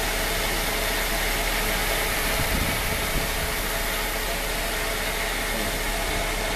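Rosenbauer fire truck's engine and pump running steadily while pumping foam out of a side delivery outlet, with the steady rush of the foam jet.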